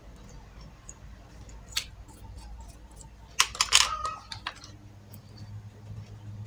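A few sharp clicks and a short clatter of small hard objects being handled, the loudest cluster about three and a half seconds in, over a steady low hum.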